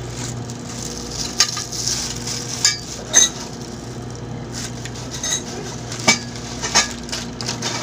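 Plastic wrapping crinkling and several sharp clicks and knocks as plastic-wrapped steel coat-rack parts are handled and taken from their box, over a steady low hum.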